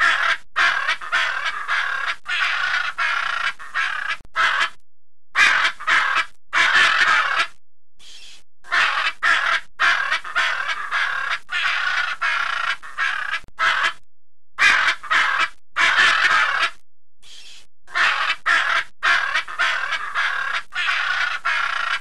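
Blue-and-yellow macaw giving loud, harsh, raspy squawks, one after another in runs with brief pauses between.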